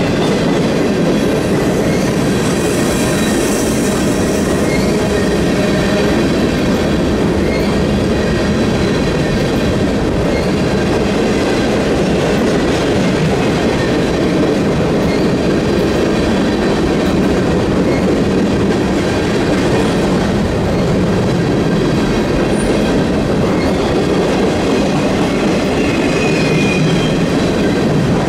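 Empty flat cars of a BNSF freight train rolling past at speed: a steady rumble and rattle of steel wheels on rail, with faint high wheel squeal now and then.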